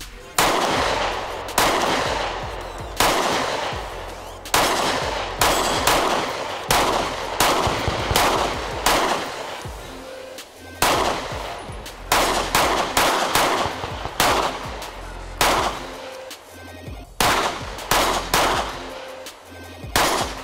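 Springfield Armory XD-M Elite 3.8 compact pistol firing about two dozen shots loaded with SIG Elite V-Crown jacketed hollow points. Some shots are spaced about a second apart and others come in quicker runs. The pistol cycles every round without a stoppage.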